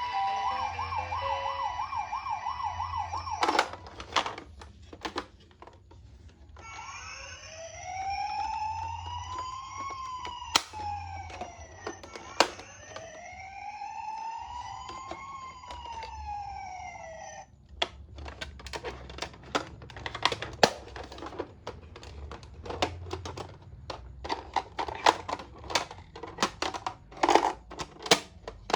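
Toy ambulance minicar's electronic siren. It opens with a fast warbling beep tone, then sounds a wail that rises and falls twice over about ten seconds. After that comes a run of sharp, irregular clicks and taps.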